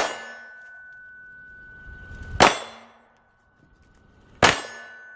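Three 9mm Glock 19 pistol shots, about two seconds apart, each followed by a metallic ringing that hangs on until the next shot.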